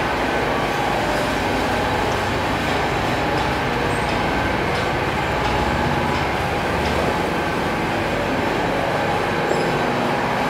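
Steady machinery noise on a charcoal briquette factory floor: one continuous, even din with a few faint steady tones running through it and no pauses.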